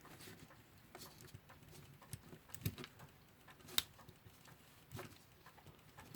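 Faint, irregular small clicks and taps of tools working on a clock movement, pulling and twisting at a stuck washer, with one sharper click about four seconds in.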